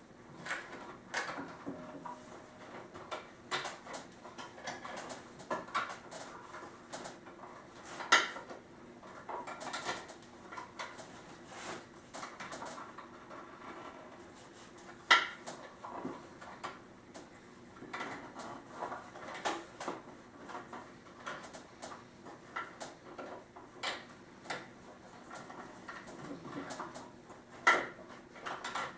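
Scattered light metallic clicks and taps from handling a steel cable and its wire rope clamp against the wooden table frame, with three sharper clicks standing out.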